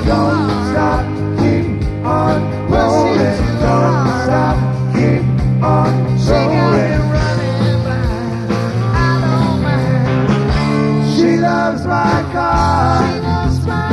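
Live rock band playing, with a steady bass and drum beat under a lead line that bends and wavers in pitch.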